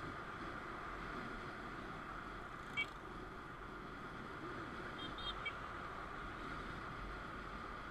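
Steady, fairly quiet running noise of a motorcycle on the move, heard from an onboard camera, with a couple of brief high chirps about three and five seconds in.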